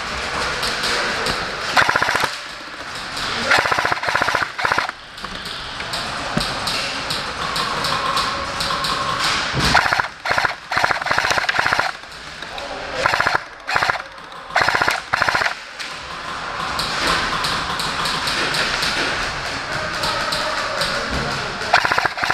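Airsoft electric guns firing several rapid full-auto bursts, the loudest about two seconds in, in the middle of the stretch, and again near the end, over a steady background hiss.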